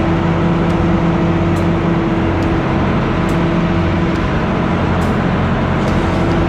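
Engine of a farm machine running steadily at a constant speed, a loud even hum that holds one pitch throughout, with faint ticks about once a second.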